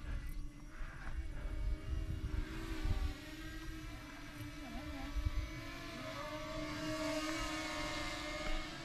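Distant hum of small electric RC aircraft propellers overhead: a steady tone that wavers and bends in pitch as the motors change speed. Wind rumbles on the microphone underneath.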